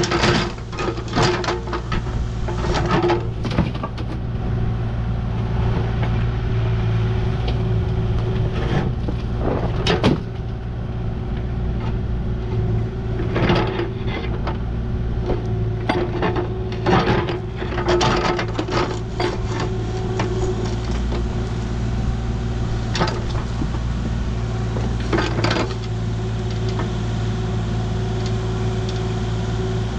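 Heavy construction machine's diesel engine running steadily, with irregular metal clanks and knocks over it.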